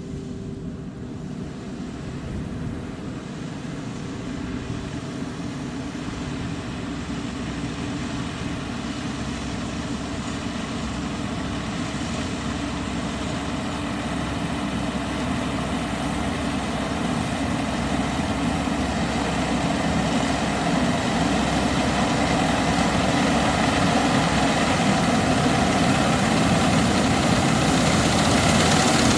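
Combine harvester running through a rice field, a steady heavy engine and machinery drone that grows steadily louder.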